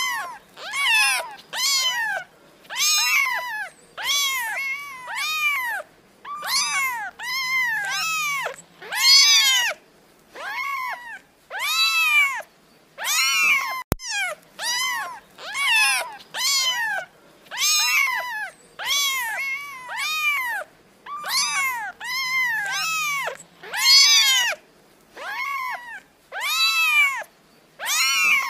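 Kittens meowing over and over, high-pitched calls that rise and then fall, about one a second. A click comes about halfway through, after which the same run of meows repeats.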